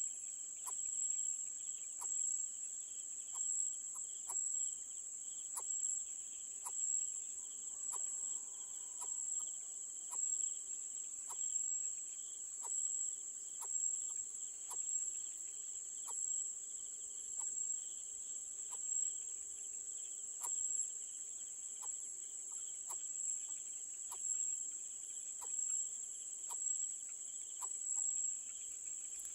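Steady high-pitched insect trilling, with sharp ticks repeating a little faster than once a second.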